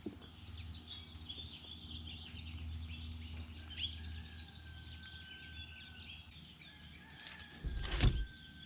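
Wild birds chirping and singing over a low steady rumble, with a thin steady whistle from about four to six seconds in. Near the end, a thump as the whole croaker is slapped down onto the cutting board.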